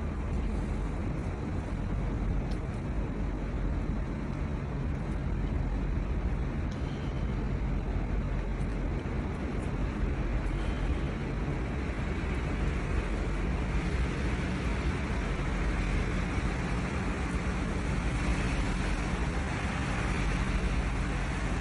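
Steady city street traffic noise: a continuous low rumble of passing cars with no distinct events.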